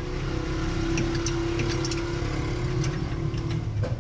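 Hino truck's diesel engine running steadily with a low hum; a higher steady tone in it drops out near the end.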